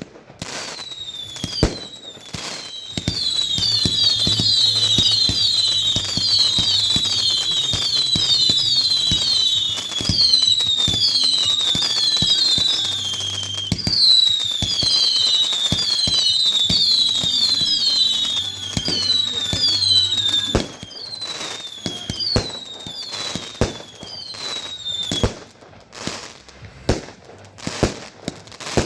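Fireworks going off: a rapid string of overlapping whistles, each falling in pitch, over many sharp bangs. The whistles stop about 25 seconds in, leaving separate bangs.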